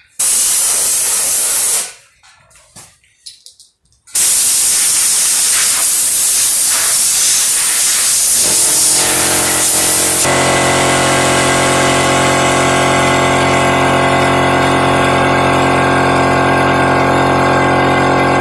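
A loud hissing spray in two blasts: a short one under two seconds long, then, after a pause with a few small clicks, a long continuous one. Partway through the long blast a steady hum made of many even tones comes in under the hiss and keeps going.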